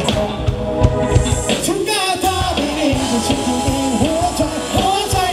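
Live band playing upbeat dance music over loudspeakers, with a singer's voice carrying the melody over electric guitar, keyboard and a steady drum beat.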